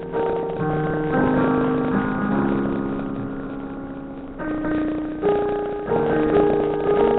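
Piano played slowly: chords and melody notes struck one after another and left to ring, with one long chord fading away through the middle before the playing picks up again.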